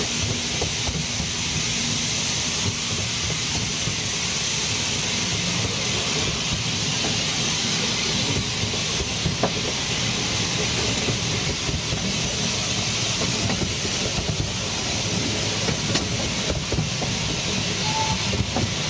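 Narrow-gauge steam train running along the track: a steady hiss with the continual rattle and light clicks of the carriage wheels on the rails.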